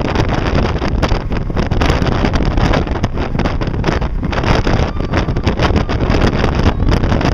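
Wind buffeting the microphone over the steady rushing noise of a fishing boat under way, loud and gusty with no pause.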